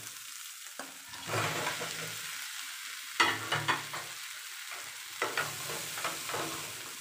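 Pieces of fried chicken going into a nonstick frying pan of onions, tomatoes and chillies, which keeps sizzling. A wooden spatula stirs and knocks against the pan, with the loudest knock about three seconds in.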